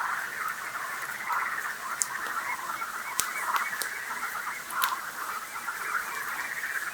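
A dense frog chorus of continuous chattering croaks, with a few sharp crackles from a wood campfire, about three in all.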